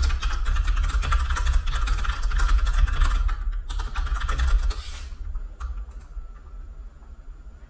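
Rapid typing on a computer keyboard, a dense clatter of keystrokes for about five seconds that thins to a few scattered key clicks, over a low rumble.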